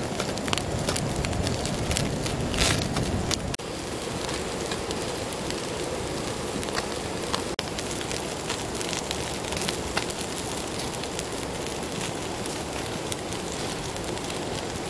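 Wood fire crackling, with frequent sharp pops over a steady hiss.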